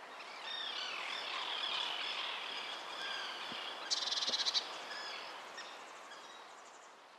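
Outdoor bird chorus: many birds chirping and calling together, with a fast rattling trill about four seconds in, the loudest moment, then fading out toward the end.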